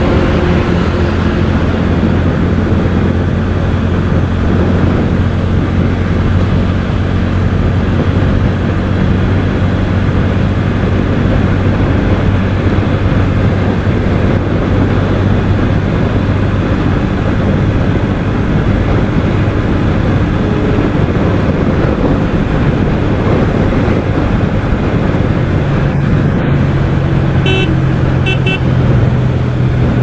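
Bajaj Pulsar N160's single-cylinder engine running steadily at highway cruising speed, under heavy wind and road rush on a helmet-mounted microphone. The engine note steps up in pitch about 25 seconds in, and a few brief high-pitched toots sound near the end.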